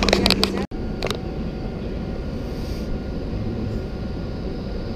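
Railway station ambience: a steady low rumble with a faint steady hum, after a few sharp clicks in the first second.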